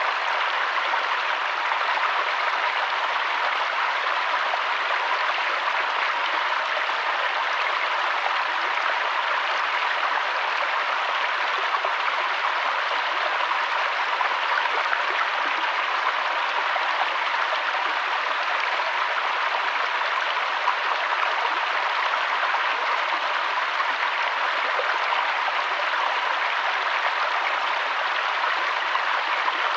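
Waterfall water rushing steadily, an even, unbroken noise with no distinct splashes.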